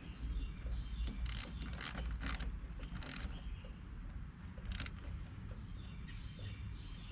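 Metal clicks and scrapes as the positive battery terminal clamp is worked down and tightened onto the post, several sharp clicks bunched in the first few seconds. A bird gives a short high chirp about once a second throughout.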